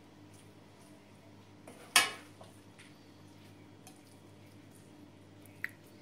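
Serving utensil clinking against an enamel pot and a plate as noodles are served: one sharp knock about two seconds in, with a few lighter clinks around it.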